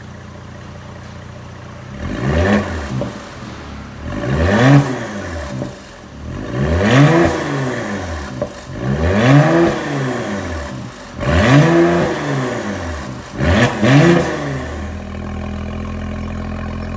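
Mercedes-AMG GLE 43's 3.0-litre twin-turbo V6 idling through a valved exhaust with the middle silencer removed and the valves open. It is then blipped six times, about every two seconds, each rev rising and falling back within about a second.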